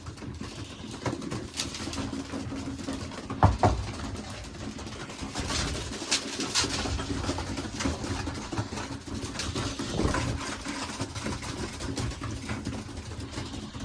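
Racing pigeons cooing in the loft, with scattered clicks and a sharp knock about three and a half seconds in.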